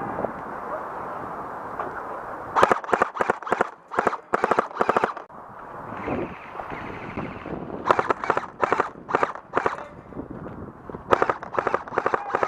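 Airsoft rifle firing rapid bursts of shots in three spells a few seconds apart, each spell a quick run of sharp clicking cracks.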